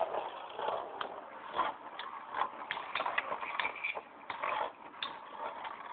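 Two Beyblade spinning tops clashing in a bowl of water: irregular sharp clicks and knocks as they strike each other and the bowl's side.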